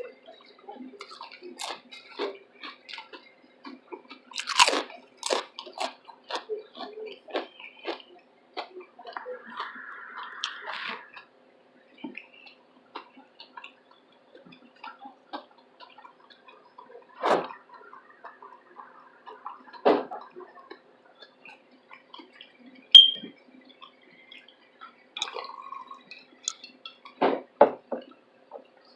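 Chewing a big mouthful of chilli cheese slaw veggie dog: irregular mouth noises with a few louder bites, and one sharp click about two-thirds of the way through.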